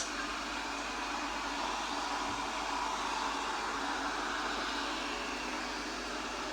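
Robot vacuum mop running steadily: an even whirr of its suction fan and brushes as it cleans the floor, swelling slightly midway.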